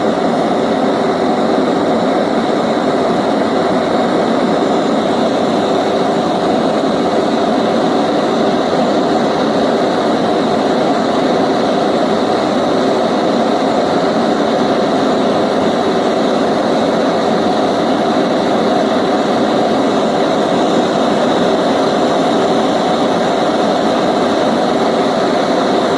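Gas torch burning steadily, a constant rushing noise that does not change, as it heats 1 mm mild steel plate for silver soldering.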